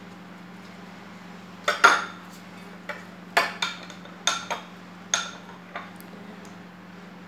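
Kitchen utensils and dishes clinking: about eight sharp clinks and knocks in small clusters, starting a little under two seconds in and stopping about a second and a half before the end, over a steady low hum.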